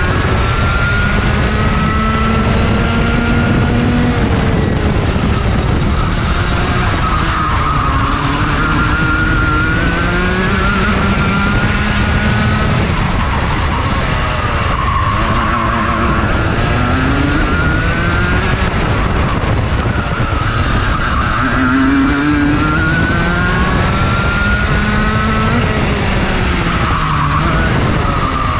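Rotax Junior Max kart's 125 cc single-cylinder two-stroke engine running flat out on a lap, its pitch climbing over a few seconds on each straight and dropping sharply as it slows for each corner. A steady rush of wind noise runs underneath.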